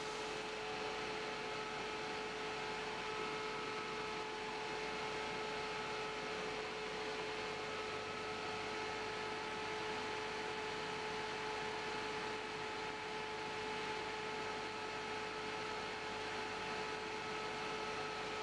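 Fume extractor fan and hot-air rework station blower running together at 75% airflow: a steady hiss with a few steady whining tones.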